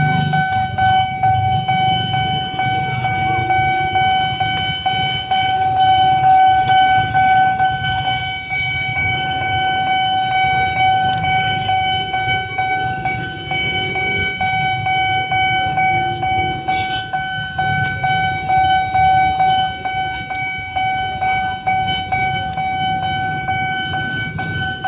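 Railway level-crossing warning siren of the original Nippon Signal type, sounding one steady high tone without a break while the crossing is closed. A low traffic rumble runs under it.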